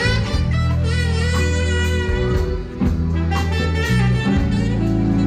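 Live jazz-blues band playing an instrumental: saxophone and electric guitar over keyboards, bass guitar and a drum kit with steady cymbal hits.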